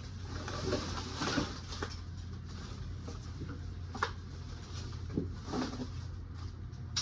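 Rustling and scraping with a few sharp clicks, about four and five seconds in, over a steady low hum: handling of a plant, its pot and soil.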